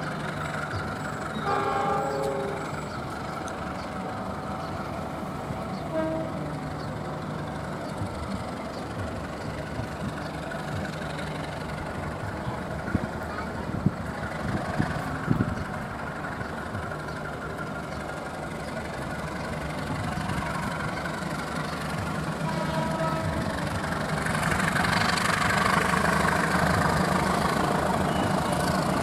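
Diesel locomotive hauling a passenger train as it approaches, its engine humming steadily with the rumble of wheels on rail growing louder over the last several seconds.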